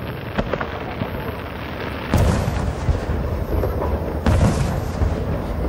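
Aerial firework shells bursting in a Japanese starmine barrage: a few light cracks in the first second or so, then two heavy booms about two seconds apart with a sharp crack between them, and a low rumble carrying on after the first boom.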